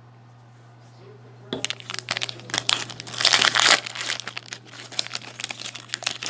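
Plastic-foil wrapper of a hockey card pack crinkling as it is torn open, starting about a second and a half in and loudest around the middle, then cards being handled.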